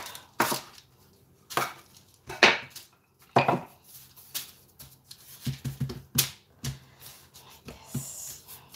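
Metal bench scraper knocking against the counter as it squares off the edges of a slab of cookie dough, about one sharp knock a second, followed by quicker, softer taps and pats as the dough is pressed flat by hand.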